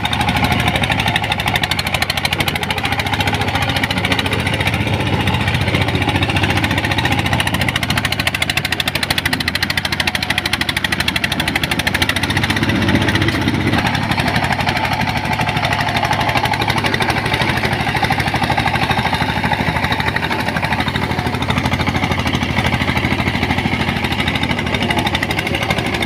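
A small motor-driven machine running steadily with a fast, even rattle.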